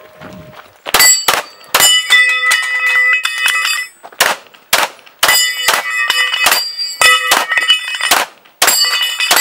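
Rapid 9mm pistol fire at a spinning steel plate target. The shots come two to three a second, with a pause of about two seconds after the first few, and the steel plates ring after the hits.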